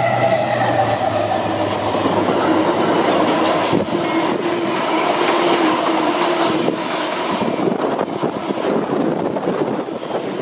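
Colas Rail Class 70 diesel locomotive passing at speed, its engine note fading away in the first couple of seconds, followed by its long train of freight wagons clattering steadily past.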